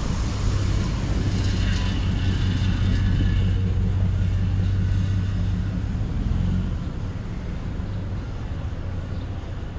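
A motor vehicle's engine running close by with a steady low hum over street traffic, dropping away about six and a half seconds in.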